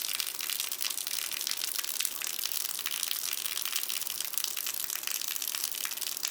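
Heavy rain falling hard on concrete, a dense, steady hiss thick with fine pattering ticks, with harder drips striking a gutter.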